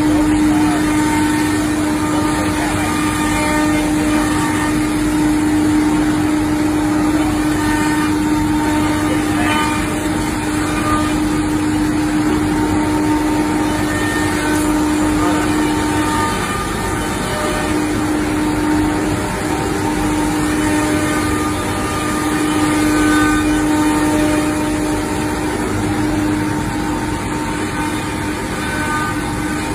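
CMS Selexx Pal CNC router running, its spindle giving a steady tone over a dense machine noise, the tone breaking off briefly a little past the middle.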